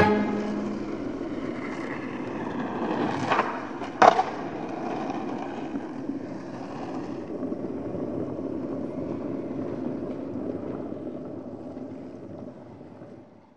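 Skateboard wheels rolling over rough asphalt with a steady rumble, two sharp clacks about three and four seconds in, fading out near the end.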